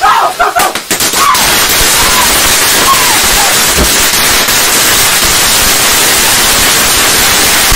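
Fountain firework spraying sparks with a loud, steady hiss, preceded by a few sharp crackles in the first second as it builds up.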